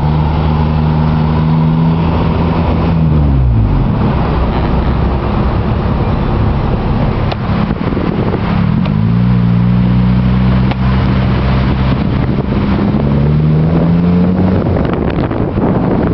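Road noise inside a moving car's cabin: a steady rush of tyres and wind under the engine's note. The engine pitch drops about three seconds in, dips again about halfway and rises near the end.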